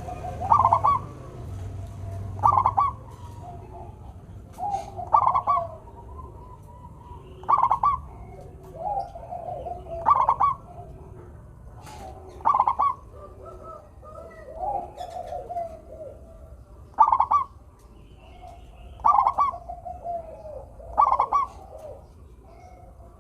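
Zebra dove (local perkutut) singing: repeated cooing phrases about every two seconds, each a quick stutter of notes ending in a lower rolling coo, with softer notes in between.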